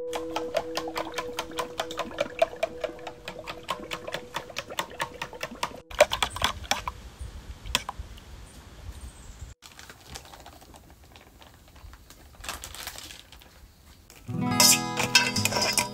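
A metal spoon beating egg in a stainless steel bowl: rapid, regular clicks of about five a second, followed by slower stirring through the batter. Background music comes in near the end.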